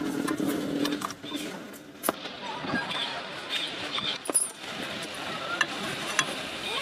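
Light metallic clinks and knocks of a motorcycle's clutch cover being pressed back onto the engine case by hand, with sharp clicks about two seconds in and again about four seconds in.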